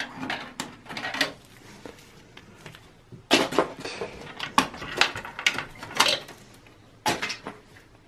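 Handling noise from a gloved hand working cables and plastic connectors inside a metal server case: scattered clicks, light rattles and rustling, in three short spells with quiet gaps between.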